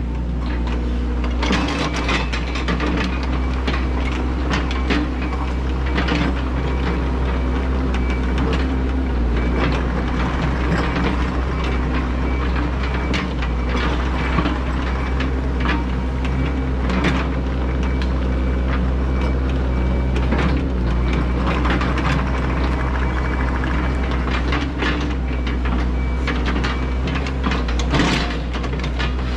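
Yanmar ViO80 excavator's diesel engine running under load as the hydraulics work the boom and bucket, with scattered knocks and scrapes of the bucket digging and dumping dirt and stones.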